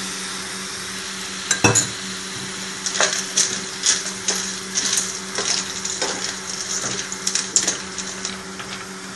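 Spoon stirring macaroni and vegetables in a frying pan, clinking and scraping against the pan about twice a second, over a faint sizzle. One loud knock comes about a second and a half in, and a steady low hum runs underneath.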